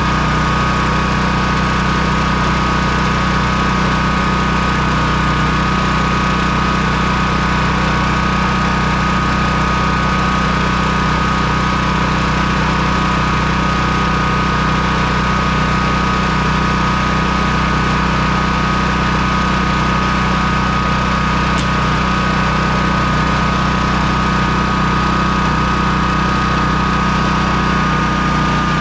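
Honda EB3800X generator's GX240 single-cylinder engine running steadily on its replacement carburetor, with a steady high tone over the engine note. The sound shifts slightly near the end.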